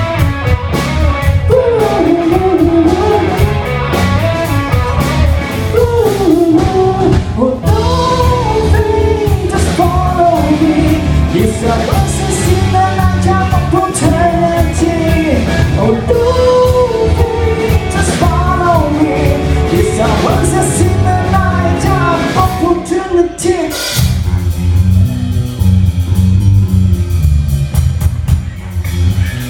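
Live band playing a rock cover: a singer over guitar and drum kit. The singing stops about 24 seconds in and the band plays on.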